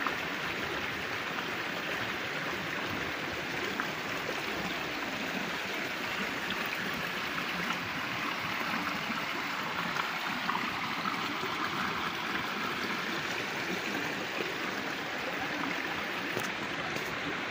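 Shallow creek water running over rocks and stones: a steady rushing and babbling that holds level.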